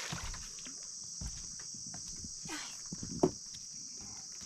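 Steady high-pitched chorus of insects, with a few light knocks and one sharper thump about three seconds in.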